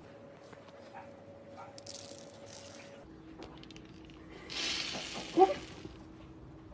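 Sprinkles rattling out of a small plastic shaker onto frosted cupcakes: brief shakes about two seconds in, then a longer, louder pour about four and a half seconds in, ending in a sharp tap.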